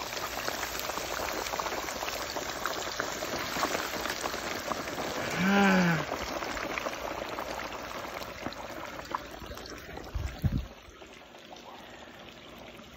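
Cornmeal-breaded croaker fish deep-frying in a pot of hot oil, a dense crackling sizzle that drops away after about ten and a half seconds. About halfway through a short drawn-out voice sound rises and falls over it, and a couple of low thumps come just before the sizzle fades.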